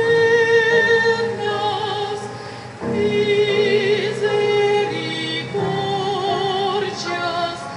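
Church choir singing a hymn in slow, long-held notes with vibrato, the chord changing about every three seconds.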